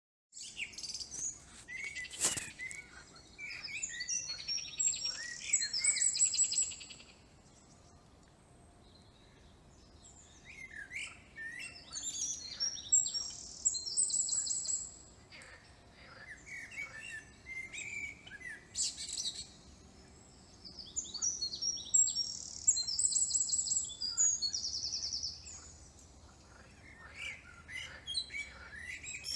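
Songbirds singing in bouts of chirps and fast high trills, with pauses of a few seconds between bouts. A single sharp click about two seconds in.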